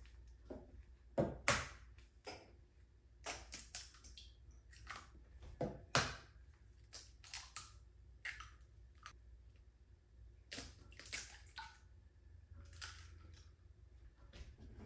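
Eggs being cracked one after another into a glass measuring cup: a series of short, sharp cracks and taps of shell at uneven intervals, with the loudest a little after a second in and near the six-second mark.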